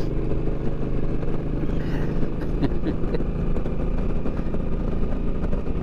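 Suzuki Boulevard C50's V-twin engine running steadily at highway cruising speed, with wind rushing over the microphone.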